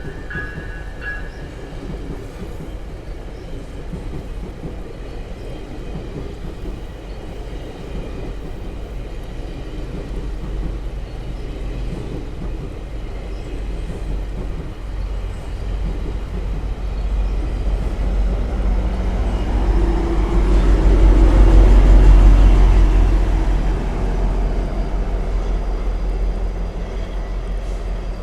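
A passing GO commuter train: a low, steady rumble that builds slowly, is loudest about three quarters of the way through, then eases off as it moves away.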